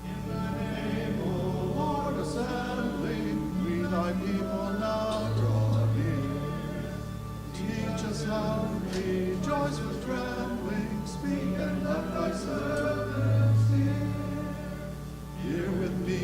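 A congregation singing a hymn together, carried by sustained instrumental accompaniment.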